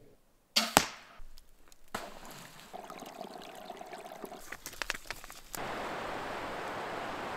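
Water trickling and splashing in a small forest stream over moss and leaves, cutting to the steady rush of river rapids about two seconds before the end. A couple of sharp cracks sound under a second in.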